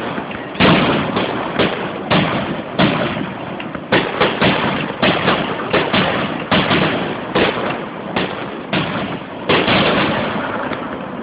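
Fireworks bursting overhead in a rapid, uneven barrage of sharp booms, several a second at times, each with a rumbling tail.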